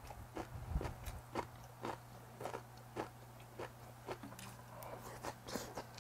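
A person chewing a mouthful of food with the mouth open, wet smacking clicks at about two a second, over a steady low hum.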